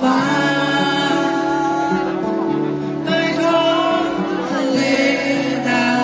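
Live acoustic band music: strummed acoustic guitars with a singing voice carrying a slow, held melody.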